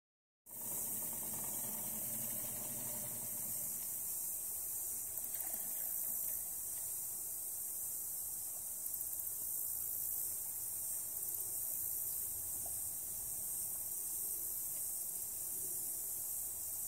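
Steady high-pitched insect chorus of swamp crickets or cicadas, with a couple of faint knocks.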